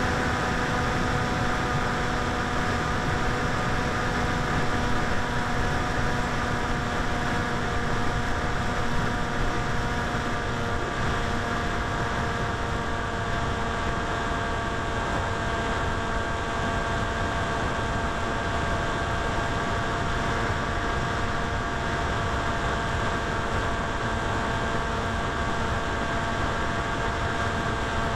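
Electric motor and propeller of a 900 mm Popwing foam flying wing running at steady throttle, heard through the onboard camera. It makes a steady whine whose pitch sinks very slightly, over a constant rush of wind.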